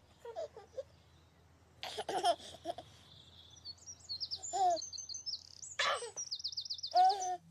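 A baby giggling and cooing in short bursts, the loudest just before the end. Birds chirp and trill high above it from about three seconds in, with a quick run of repeated chirps near the end.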